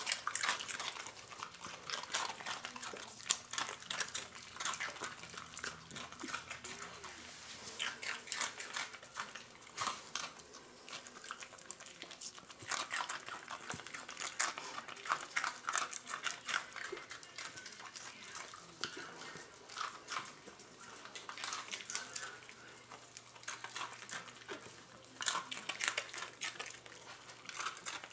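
Miniature pinschers crunching dry Cheerios off a hard floor: a dense run of irregular crunches and small clicks.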